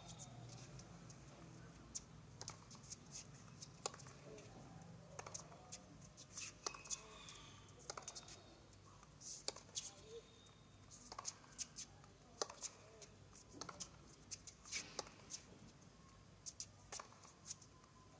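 Tennis ball struck back and forth in a long baseline rally: faint sharp pops of racquet strikes and ball bounces, roughly one every second, over a low hum.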